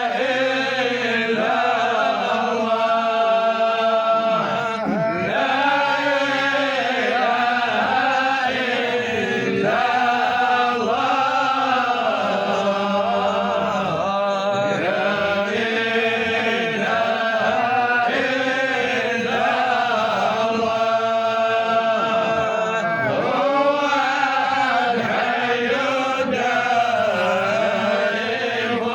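A man's voice chanting an Arabic Sufi qasida, unbroken, with long wavering held notes that rise and fall.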